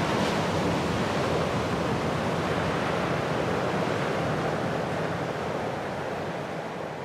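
Sea surf: a wave breaks at the start, then a steady wash of water that slowly eases off.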